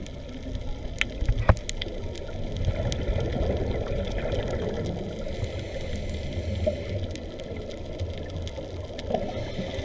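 Underwater bubbling and rushing water heard through the camera housing, typical of a scuba diver's exhaled bubbles, strongest a few seconds in. Two sharp clicks sound about a second in.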